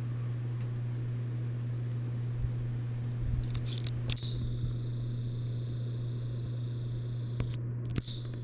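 30-inch Litex Vortex hugger ceiling fan running, its motor giving a steady low hum. A few short clicks come about three to four seconds in and again near the end.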